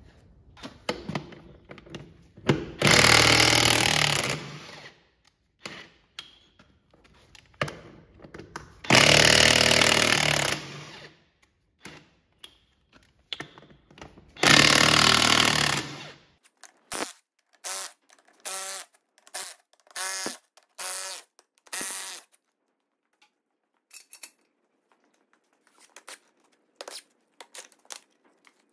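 Cordless impact wrench hammering tractor wheel nuts loose: three long loud bursts of about two seconds each, then a run of short bursts, then faint clicks near the end.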